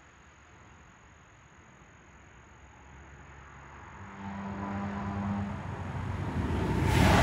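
A car approaching along the road, growing steadily louder, then passing close by with a rush of noise near the end.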